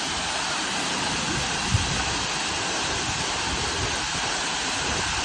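Waterfall rushing: a steady, even wash of falling water, with one brief low thump a little under two seconds in.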